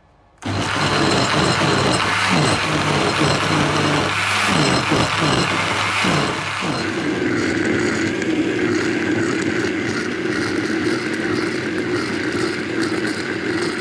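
Electric countertop blender running, grinding boiled chicken, chicken broth and a soft-boiled egg into a wet puree. It starts about half a second in; the motor's pitch wavers for the first several seconds while chunks churn in the jar, then settles to a steady hum once the mix turns smooth.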